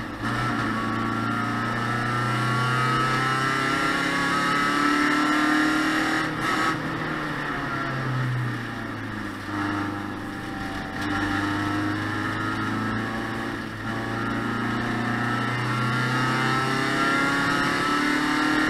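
Race car engine heard from inside the cockpit, driven hard around a circuit: the revs climb steadily and drop back several times, as on gear changes and lifts for corners.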